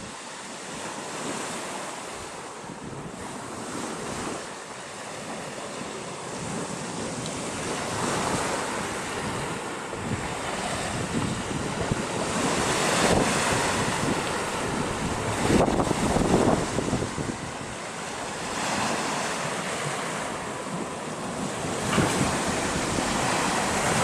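Sea waves breaking and washing on the shore, swelling and falling back every few seconds, with wind buffeting the microphone.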